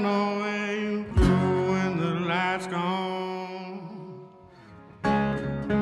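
Background music led by guitar. It dies away about four seconds in and starts up again a second later.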